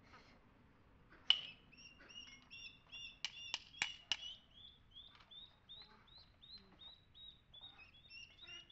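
Several sharp metallic taps of hammer on chisel, cutting old mortar out of a stone wall: one about a second in and a quick cluster of four around three to four seconds in. A small bird chirps a fast run of short, high notes through most of it.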